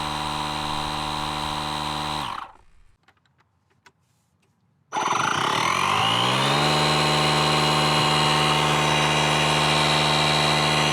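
Small electric tyre inflator compressor running with a steady motor hum. It stops about two seconds in, leaving a few faint clicks. About five seconds in it starts again, rising in pitch as it spins up, then runs steadily.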